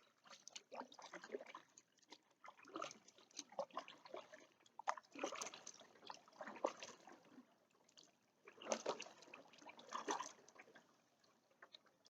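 Kayak paddle blades dipping into canal water, with splashes and drips coming in uneven surges every second or two.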